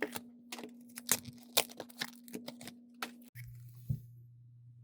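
Plastic blister packaging of Pokémon card packs being handled and opened: a rapid run of sharp crackles and clicks for about three seconds, then quiet apart from one more click.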